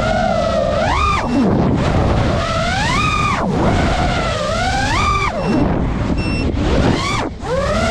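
FPV racing quadcopter's motors whining, their pitch surging up and falling back about every two seconds with the throttle, over a rushing noise underneath; the pitch drops sharply near the end.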